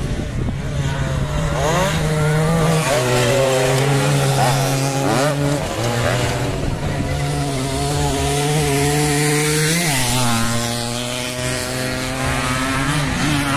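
Motocross dirt bike engines revving hard on the race track. Each bike's pitch climbs and then steps or drops as it changes gear or lets off the throttle, with several rises at a few points and a big one about ten seconds in.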